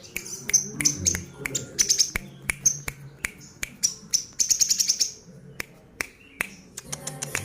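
Olive-backed sunbird singing vigorously: a string of sharp, very high chips and clicks, breaking into a fast rattling trill about four and a half seconds in.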